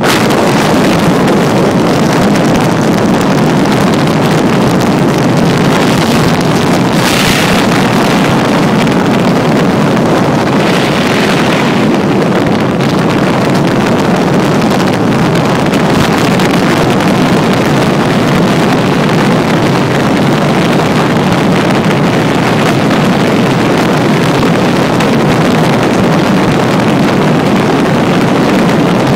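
Loud, steady rush of wind and road noise on the microphone of an iPhone carried on the outside of a moving car, with brief louder hissing gusts about 7 and 11 seconds in.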